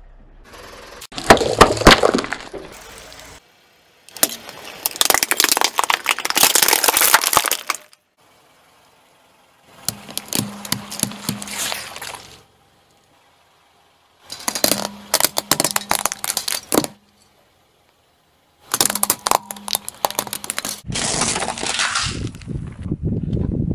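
A car tyre rolling slowly over and crushing small objects on pavement: dense crackling, cracking and crunching as they break apart. It comes as about six separate stretches of a few seconds each, starting and stopping abruptly with short silences between.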